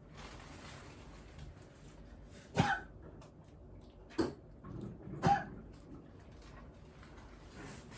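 Dog coughing: three short, sharp coughs, the first two about a second and a half apart and the third about a second later.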